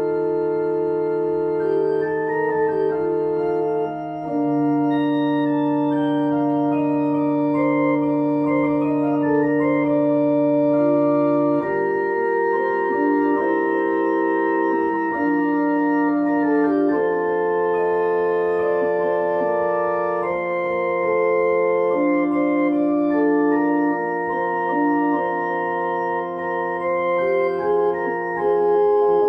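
Slow keyboard music in several voices: long held bass and middle notes that sustain without fading, sounding like an organ, under upper lines that move note by note. The bass changes about four seconds in and again near twelve and fifteen seconds.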